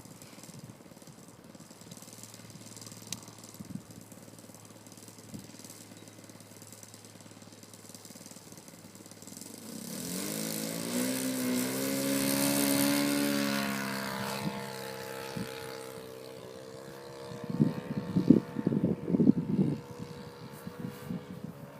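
Engine of a Yak 54 radio-controlled model aerobatic plane, faint and steady at first. About ten seconds in it swells loudly as the plane passes close, its pitch falling as it goes away. Gusts of wind hit the microphone near the end.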